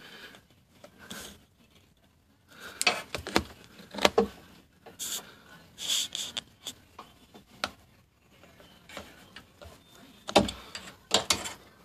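Scattered light clicks, taps and rubbing from handling an inspection mirror around freshly brazed refrigerator tubing, with a few louder knocks near the end.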